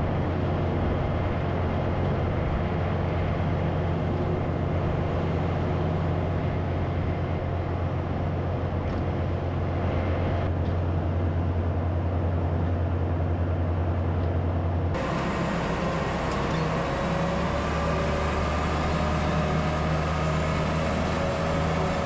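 Diesel engines running steadily while a skid steer loads corn silage into a vertical mixer wagon. About 15 s in the sound changes abruptly to a tractor pulling the running feed mixer wagon, a steady drone with a faint whine.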